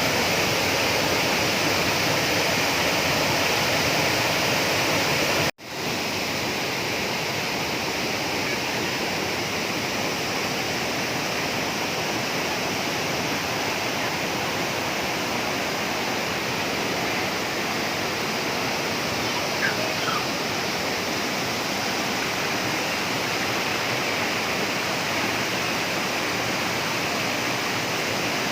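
Waterfall rushing with a steady roar of falling water. It cuts out for an instant about five and a half seconds in, then carries on slightly quieter.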